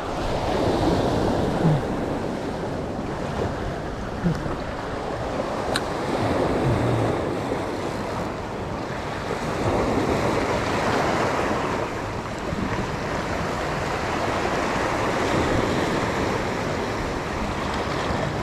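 Sea waves washing and breaking against a rocky shore, the surf swelling and easing every few seconds, with wind buffeting the microphone.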